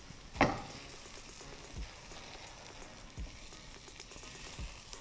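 Faint sizzling and crackling of a burger bun toasting in butter on a hot tawa. A short sharp sound comes about half a second in, and a few soft low thumps follow.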